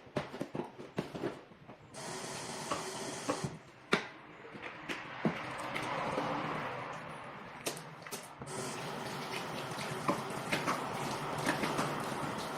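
Water running from a tap into a sink, starting about two seconds in, with scattered clicks and knocks.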